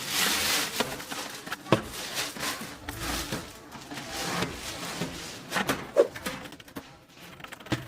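Plastic wrapping rustling and crinkling as a printer is pulled out of its protective cover, with a couple of sharp knocks of the printer being handled.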